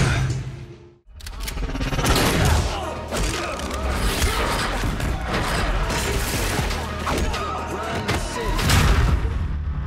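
TV action-scene soundtrack: music under a fight, with thuds and rapid runs of sharp cracks. The sound drops out briefly at a scene cut about a second in.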